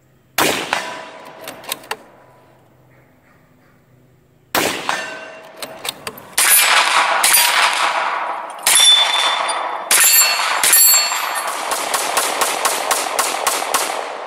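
Gunshots: a single shot near the start and another a few seconds in, then heavier shots that end in a fast string of about four shots a second. Each shot has a long ringing tail.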